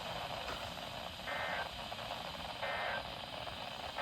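Radio receiver hiss with a short electronic beep of a few steady tones that repeats about every second and a half.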